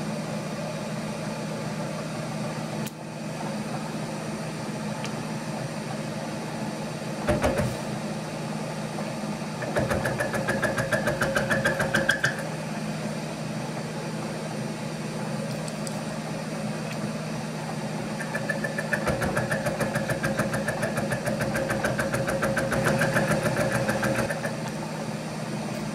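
Milling machine running with a boring head cutting a clearance scallop in a metal mounting foot, the quill hand-fed down. A steady machine hum runs under two stretches of rapid, regular cutting chatter, one of about two seconds and one of about six, with a single knock about seven seconds in.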